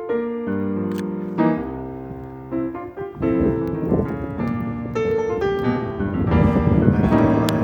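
Jazz piano music, a flowing run of single notes and chords that grows fuller and louder from about halfway through.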